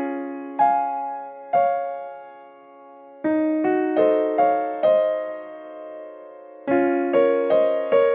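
Background music: a slow, gentle piano melody, single notes and chords struck every half second or so and left to ring out.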